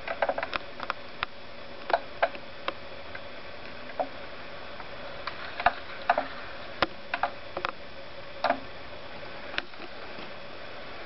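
Scattered small clicks and taps at irregular intervals over a steady hiss and a faint steady hum. The clicks come in clusters, most of them in the first few seconds and again in the middle stretch.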